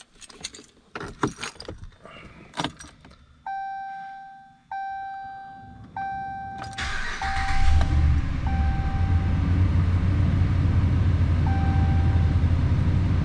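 Keys jangling and clicks, then a dashboard warning chime sounds three times before the 5.7 L Hemi V8 of a 2014 Dodge Ram 1500 cranks and catches about seven seconds in. It flares up briefly, then settles into a steady idle, with a few more chimes over it. This is the first start after new spark plugs were gapped and fitted.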